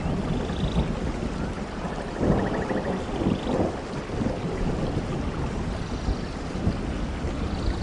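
Steady rain with a rolling rumble of thunder, the rumble swelling to its loudest about two seconds in.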